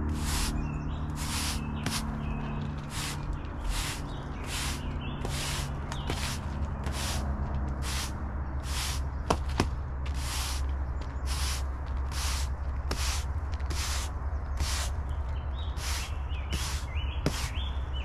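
Push broom sweeping a concrete slab: regular swishing strokes of the bristles, about two a second, with a couple of sharp clicks about halfway through, over a low steady hum.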